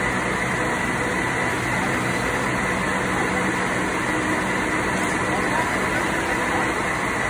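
Steady machinery running: a constant drone with several held tones, with a person's voice over it.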